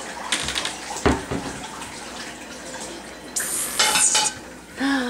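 Light clattering and rustling at a wooden pantry cabinet, with one sharp knock about a second in.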